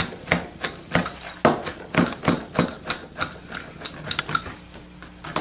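Chef's knife chopping raw chicken on a plastic cutting board, mincing it by hand: a quick run of knocks of the blade against the board, about three a second, thinning out near the end.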